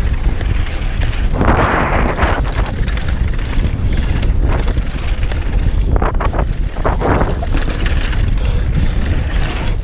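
Mountain bike descending fast on a dry dirt trail: wind buffets the chest-mounted action camera's microphone in a steady low rumble, over the sound of tyres running on loose dirt and gravel and the bike rattling. Louder bursts of tyre scrub come about a second and a half in and again around six to seven seconds.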